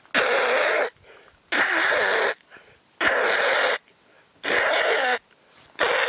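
A man imitating a little egret flushing and taking off: five hoarse, breathy rasping calls, each under a second long, about one and a half seconds apart.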